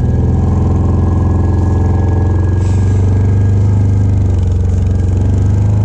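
Engine of a small vehicle running steadily at an even speed, a loud, constant hum.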